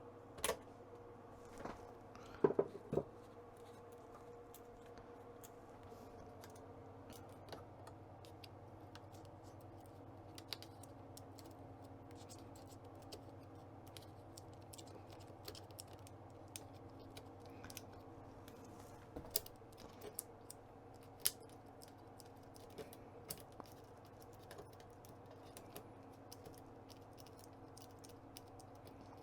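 Small metal tool clicking and scraping against a component on a circuit board as it is wiggled back and forth to snap off its legs. Irregular light ticks, with a cluster of louder clicks in the first few seconds and a couple more about twenty seconds in, over a faint steady hum.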